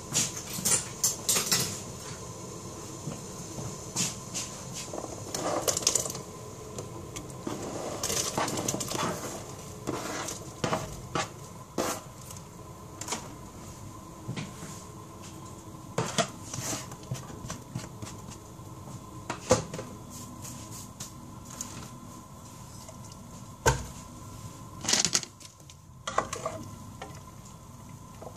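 Metal utensils clinking and clattering against a stainless-steel cooking pot, in scattered strokes, over a steady background noise.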